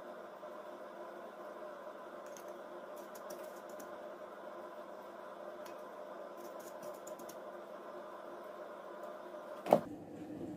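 A small plastic stamp pressing black seeds onto soft pastry dough, making faint scattered clicks over a steady hum. Near the end there is one sharp knock as the stamp is set down in the porcelain seed bowl.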